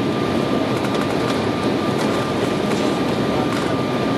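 Steady roar of airliner cabin noise during the landing approach: jet engines and rushing airflow heard from a window seat, with a thin steady whine running through it.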